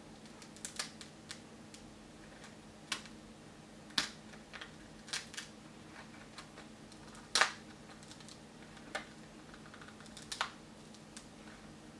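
Irregular sharp clicks and small snaps as a flexible-filament 3D-printed wallet is pried apart by hand along its printed fold, the loudest snap about seven seconds in.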